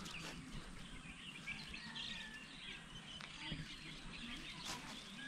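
Faint birds chirping and twittering over a quiet, steady outdoor background.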